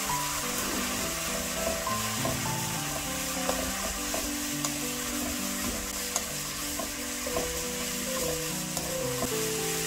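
Pork, carrot, onion and wood ear mushroom sizzling in hot oil in a nonstick frying pan as they are stir-fried with a wooden utensil, with a few sharp taps of the utensil on the pan. Background music with held notes plays along.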